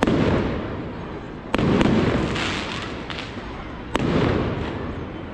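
Aerial firework shells bursting overhead: three sharp bangs about every two seconds, each followed by a rolling echo that fades away.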